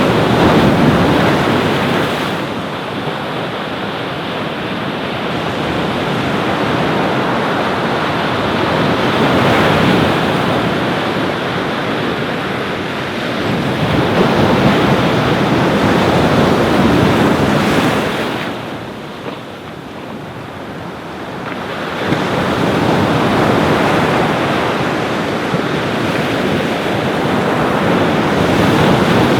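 Ocean surf breaking on a beach, a steady wash of noise that swells and eases every few seconds, with a quieter lull about two-thirds of the way through.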